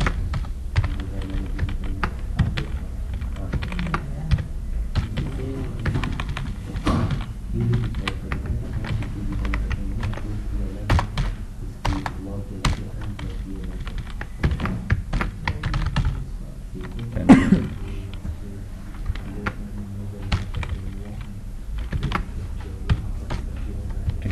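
Typing on a computer keyboard: irregular runs of key clicks with short pauses, and one louder thump about two-thirds of the way through.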